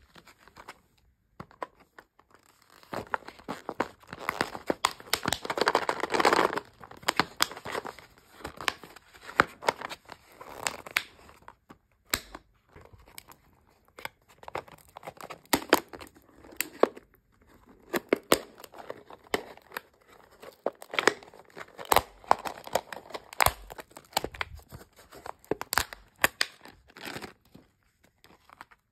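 Plastic candy-and-toy packaging being torn open and crinkled by hand, loudest and densest in the first few seconds, then irregular crinkles and sharp clicks as the wrapper and the hard plastic shell are handled.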